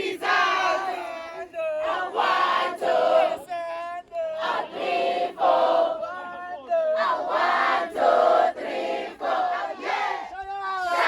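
A large group of people chanting and singing together in unison, in short repeated phrases.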